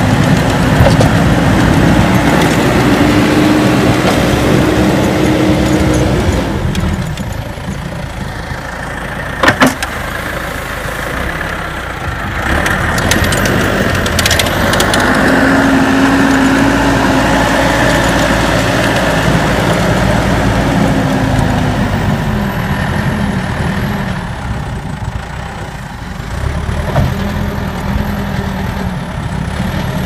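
Caterpillar backhoe loader's diesel engine running as it pushes and lifts snow with the front bucket, working louder twice with a steady whine and easing off in between. One sharp knock about nine and a half seconds in.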